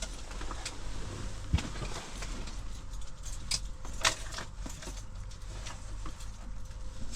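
Scattered clicks, taps and handling noises over a steady low hum as a hooked pike is worked free, with two sharper knocks about one and a half and four seconds in.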